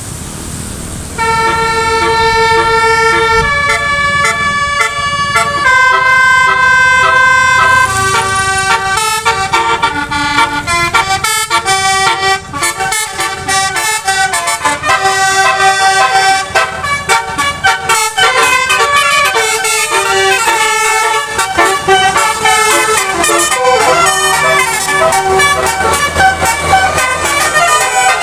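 Telolet bus horn: a set of multi-tone air horns playing a melody. It starts about a second in with long held notes, then moves on to quicker, changing notes.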